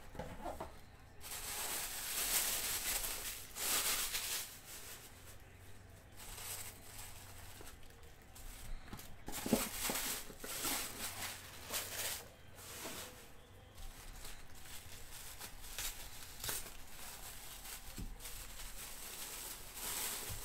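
Tissue packing paper rustling and crinkling in repeated bursts as hands pull it out of a cardboard mailer box and unwrap it.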